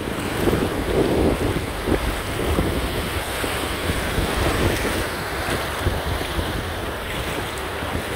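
Shallow surf washing and foaming around a shark held in the shallows, with water splashing. Wind buffets the microphone throughout.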